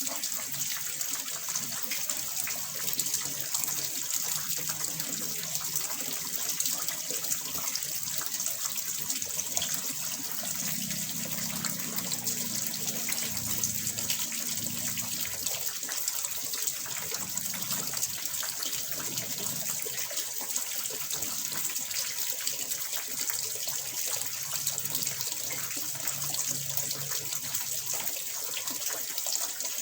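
Water pouring and splashing steadily into a small fish pond, a continuous gushing like a running tap, with a faint low rumble that swells and fades a few times.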